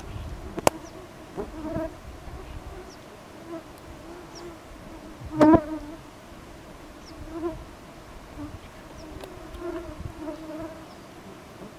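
Flying insects buzzing around the microphone, the buzz wavering and coming and going as they circle. One passes very close and loud about halfway through. A single sharp click comes near the start.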